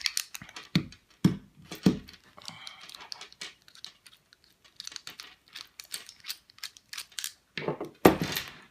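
Scattered metallic clicks and clinks from an Abus 34/55 padlock and its attached chain being handled and taken apart after picking. A short scrape comes about two and a half seconds in, and the loudest clatter near the end.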